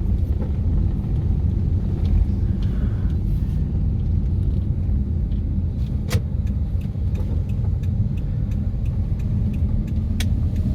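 Steady low road and engine rumble of a moving car heard from inside the cabin, with a couple of brief sharp clicks.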